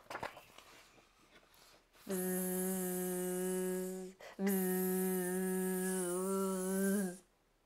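A woman's voice buzzing through clenched teeth to imitate flies: two long, steady, even-pitched buzzes, the first about two seconds and the second about three, with a short break between.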